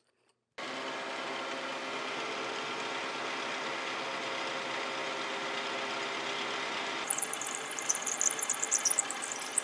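A milling machine's spindle runs with a steady hum, turning a 7/16-inch twist drill that is boring a hole through a metal shaft. From about seven seconds in, an irregular high-pitched squeal comes in as the drill cuts into the metal.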